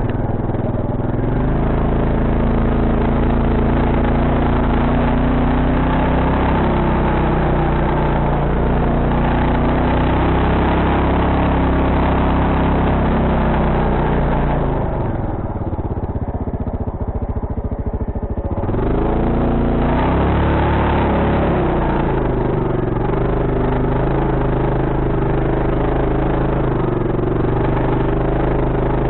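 Quad bike (ATV) engine running under way, its pitch rising and falling with the throttle. About halfway through it drops to a lower, quieter note for a few seconds, then picks up again.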